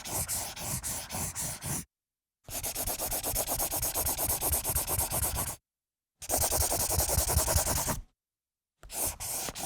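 Pencil writing on paper: quick scratchy strokes, about four or five a second, in four runs broken by short silent gaps near two, six and eight and a half seconds in.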